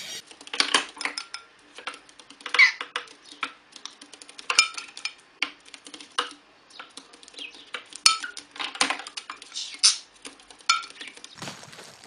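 Small balls on a toy pool table clicking and clacking against each other and the cushions, in quick irregular knocks, as a budgie pushes them around.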